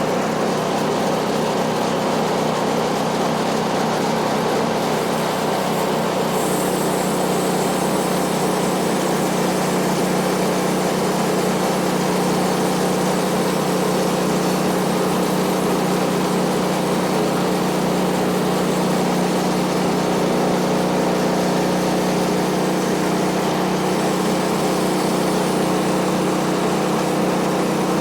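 Woodland Mills HM130MAX portable bandsaw mill's gasoline engine running steadily as the band blade cuts along a pine log.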